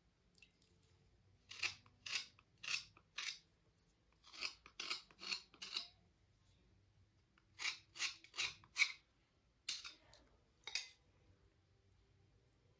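Slate cubes being scraped clean with short, crisp strokes, in runs of four or five with short pauses between, then two single strokes near the end.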